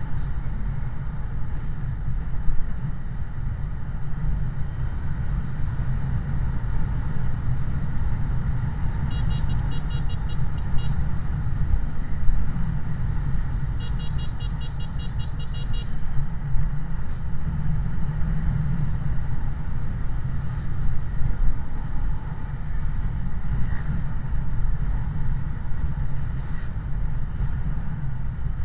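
Vehicle riding in traffic: a steady low rumble of engine and road noise. Two short bursts of rapid, pulsing horn beeps come about nine and fourteen seconds in.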